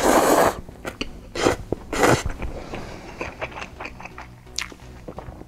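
A man slurps a mouthful of saucy instant noodles from a bowl. There is a loud slurp at the start and two shorter ones about a second and a half and two seconds in. Then comes quieter chewing, with small wet smacks and clicks.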